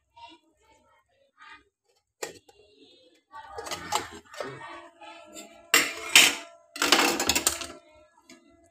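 Steel pudding tin and knife clinking and scraping against the wire steaming stand and metal pot as the tin is worked loose from its water bath. The metal rings a little. The two loudest scrapes come about six and seven seconds in.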